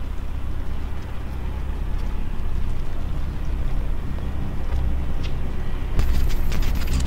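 Low, loud rumbling drone of film sound design. About six seconds in, a burst of crackling digital-glitch static cuts in over it.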